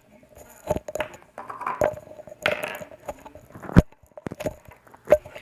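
Slime being squished and worked by hand, giving irregular sticky clicks and pops with soft squelching in between; the sharpest pop comes about four seconds in.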